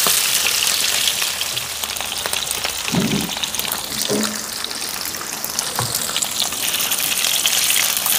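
Cubes of salo (pork fat) sizzling and crackling in a hot pan over medium heat, the fat beginning to render.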